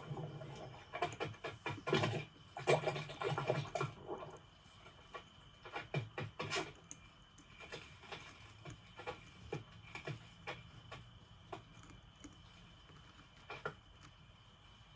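Animated-film sound effects of insects moving about: dense bursts of scratchy clicks and rustles for the first few seconds, then scattered single clicks and taps.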